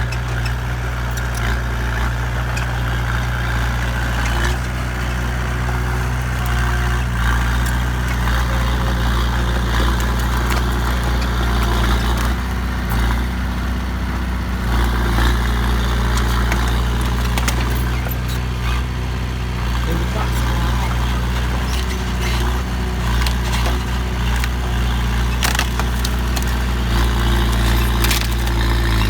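Heavy vehicle engine running steadily at a constant speed, a deep hum with scattered clicks and knocks over it.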